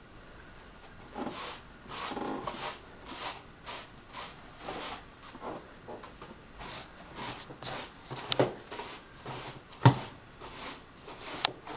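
Irregular rustling and handling noises as someone moves about a small room, with a sharp knock about ten seconds in and a click near the end.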